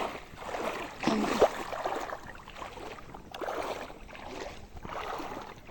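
Floodwater flowing, an uneven rush of water noise.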